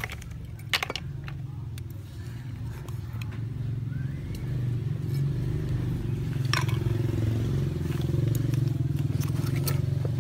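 A small engine running steadily nearby, its hum growing louder over the first half. A few sharp clicks of a metal fork and knife on snail shells and the board stand out above it.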